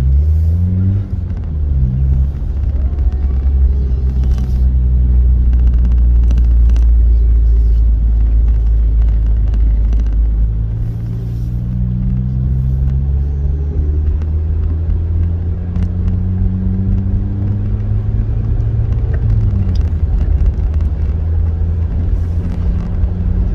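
Car engine pulling hard under acceleration, its pitch climbing steadily through a gear, then dropping sharply at an upshift a few seconds before the end and holding steady after.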